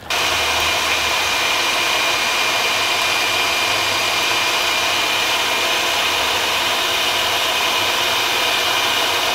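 Electric stand mixer running steadily at speed, its wire whisk beating egg whites in the bowl, with a steady motor whine. It comes on abruptly.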